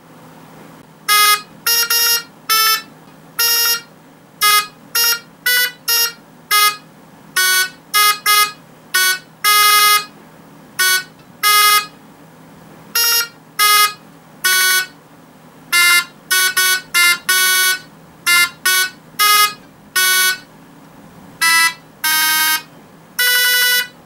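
Arduino Uno playing notes through a small speaker: a string of short, buzzy electronic beeps at different pitches, picked with a KY-040 rotary encoder and sounded with a touch button, in an uneven, halting tune. A faint steady hum sits between the notes.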